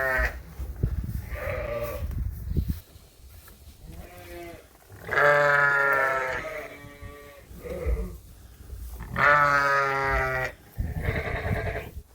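Dorset sheep in a lambing barn bleating repeatedly: about half a dozen separate calls, the longest about five seconds in. A few low thuds sound in the first few seconds.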